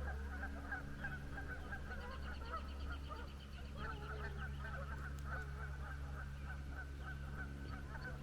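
A flock of Canada geese honking continuously, many overlapping calls, with a higher rapid bird trill about two seconds in and a steady low rumble underneath.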